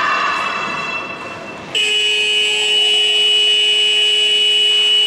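Children shouting fades, then about two seconds in a sports-hall match-timer buzzer sounds, one loud steady electronic tone that holds on: the signal for the end of play.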